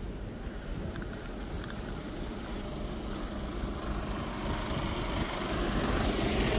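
A truck's engine running close by over steady street noise, growing louder and brighter toward the end.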